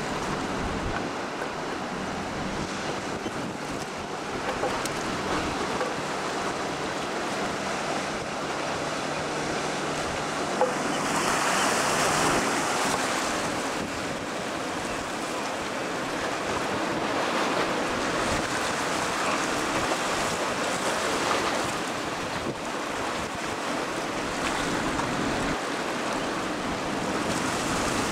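Surf breaking on a river-mouth bar: a steady wash of waves with a louder surge about twelve seconds in.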